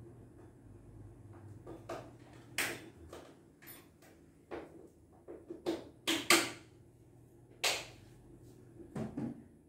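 Sharp clicks and knocks at irregular intervals, about ten in all. The loudest is a close pair about six seconds in.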